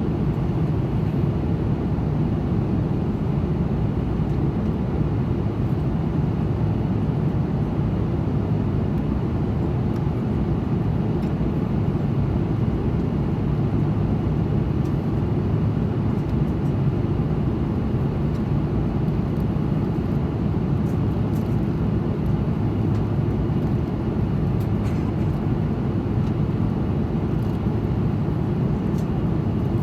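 Steady rumble and rush of an Airbus A330-200's cabin in flight, engine and airflow noise heard from a window seat, even and unchanging.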